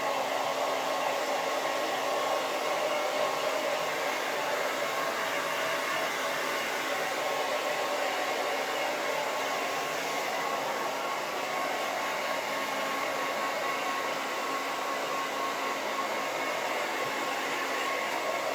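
Handheld hair dryer running steadily: a constant airflow hiss with a faint motor whine, unchanging in level.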